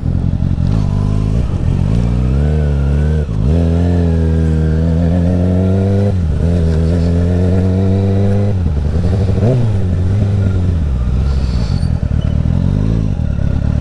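Kawasaki ZX-6R's inline-four engine running under throttle. The revs climb and fall away sharply three times in the first eight or so seconds, then settle lower with a few short rises in revs near the end.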